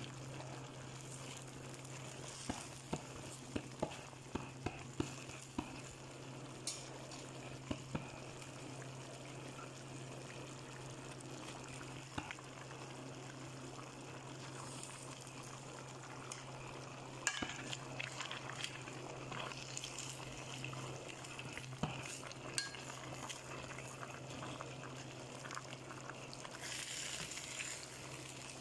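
Chicken pochero, a tomato-sauce stew, simmering in a metal pan with a low bubbling sizzle while a wooden spatula stirs it, knocking against the pan now and then, with a steady low hum underneath.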